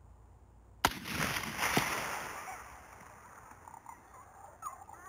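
A single rifle shot about a second in, a sharp crack followed by a rolling echo that fades over about two seconds, with a fainter second crack about a second after the shot.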